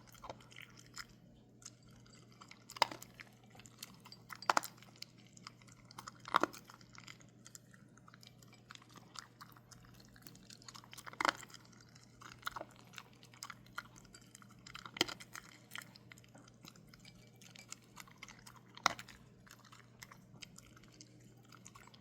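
A dog chewing and crunching its food, with sharp crunches every few seconds between quieter chewing.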